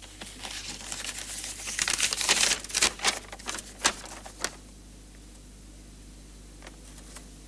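Paper rustling and crinkling as a folded letter is taken from an envelope and opened out, most intense about two seconds in, with a few sharp crackles before it settles about four and a half seconds in.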